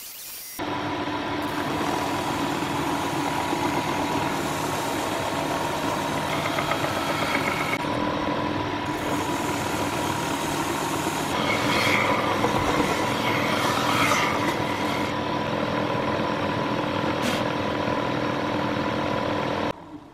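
Small benchtop electric woodworking machine running with a steady motor hum as short pine blocks are fed through it to smooth them. It switches on suddenly about half a second in, grows louder for a few seconds around the middle as the wood is worked, and cuts off suddenly just before the end.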